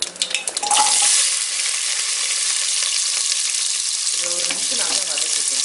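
Chopped onions tipped into hot oil with mustard seeds in an aluminium pressure cooker: sharp crackles of popping mustard seeds, then a sudden loud rush of sizzling under a second in as the onions hit the oil, settling into a steady sizzle as they fry.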